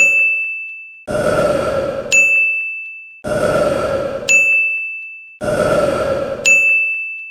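A man's burps looped in a sound edit: three burps, each about a second long, each followed by a sharp, high, bell-like ding that fades out over about a second. The burp-and-ding cycle repeats about every two seconds.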